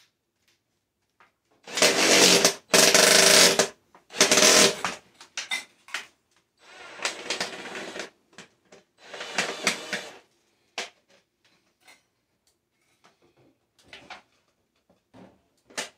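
A small power tool's motor running in three loud bursts of about a second each, then two quieter, longer runs, followed by scattered clicks and knocks of metal handling.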